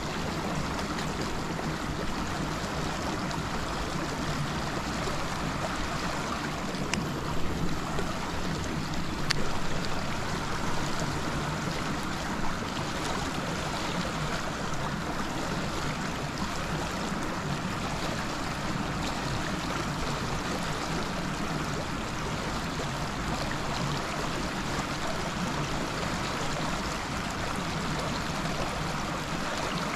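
Steady rushing of water pouring from a pipe outlet into a river, with a few brief louder bumps about a third of the way in.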